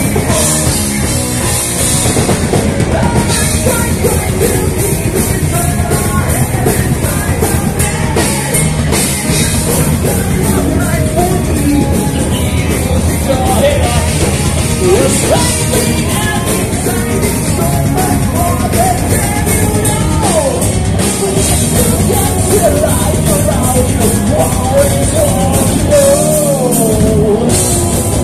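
A heavy metal band playing live at loud, steady volume: electric guitars, bass guitar and drum kit, with a singer's voice over them.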